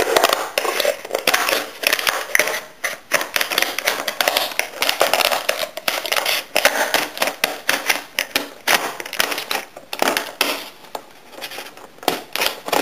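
Stiff clear plastic packaging crackling and crinkling as scissors cut into it and hands work it open: a dense, irregular run of small clicks and crunches.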